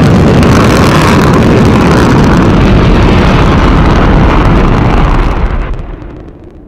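Soyuz rocket engines at liftoff: a loud, steady rumble that dies away about five and a half seconds in.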